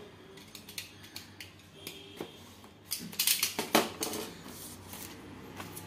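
Utility knife scraping and cutting the plastic seal on a small cardboard box, with scattered small clicks. About three seconds in comes a louder rustling stretch as the plastic wrap is pulled off the box by hand.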